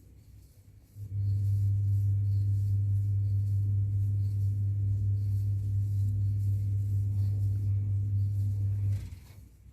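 A steady, loud low hum that starts about a second in and cuts off suddenly near the end.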